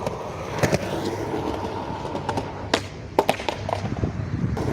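Skateboard wheels rolling steadily, broken by several sharp clacks of the board popping and landing during a trick attempt.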